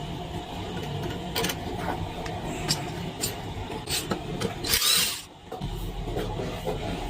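Hand tools clicking and knocking on electric-scooter parts during tyre removal, over a steady background hum. About five seconds in comes a short, loud rush of noise lasting about half a second.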